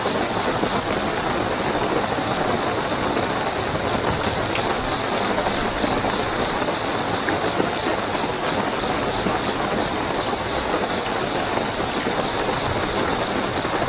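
Steady rainfall with a continuous high-pitched cricket trill over it.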